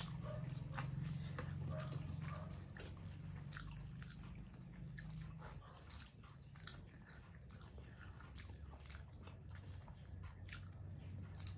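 Close-up eating sounds: chewing and biting, with many short soft clicks scattered through, as rice and curry are eaten by hand. A low steady hum sits underneath, fading about halfway through.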